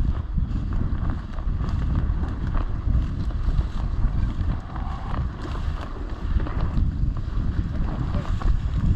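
Wind buffeting the microphone outdoors: a steady, churning low rumble.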